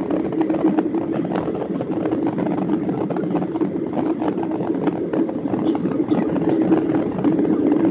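Steady cabin noise of a Boeing 737-800 airliner in flight: the CFM56 turbofan engines and the airflow past the fuselage make an even, unbroken din with a low hum.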